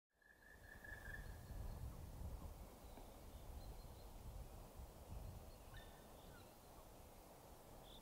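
Faint outdoor ambience: a steady low rumble with a few distant bird calls, a held whistle about half a second in and short chirps in the middle and near the end.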